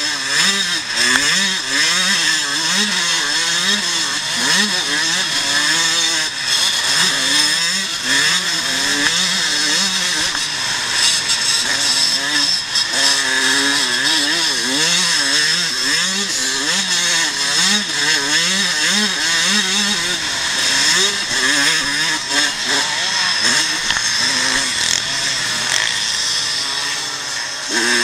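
Vintage motocross motorcycle engine heard from onboard, revving up and down continuously as the throttle opens and closes through the turns and jumps, under a steady rushing hiss of wind.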